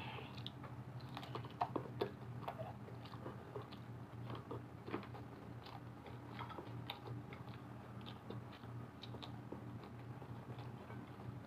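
Close-miked chewing of crunchy broasted chicken and fries: many small crunches and wet mouth clicks, loudest about one and a half to two seconds in, over a steady low hum.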